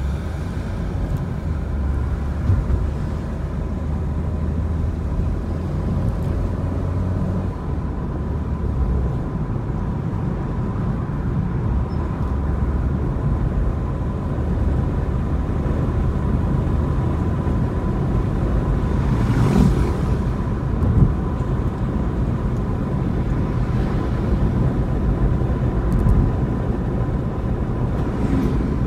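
Car driving on city streets heard from inside the cabin: a steady low rumble of engine and road, with a thin steady high tone over it. A brief rushing swell comes about two-thirds of the way through.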